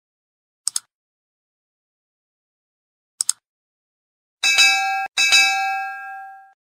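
Subscribe-button animation sound effects: a quick double mouse click, another double click about three seconds in, then a notification bell that dings twice. The second ding rings on and fades out over about a second.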